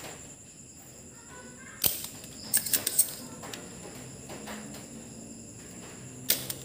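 Sharp snaps and clicks of a spring-loaded desoldering pump (solder sucker) working on a circuit board: one snap about two seconds in, a quick cluster of clicks just after, and another cluster near the end.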